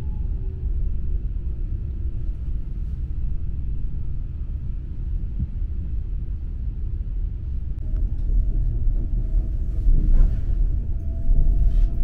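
Steady low rumble of a double-decker regional train running along the track, heard from inside the carriage. A faint, slightly rising whine joins about eight seconds in, and the rumble swells louder a little later.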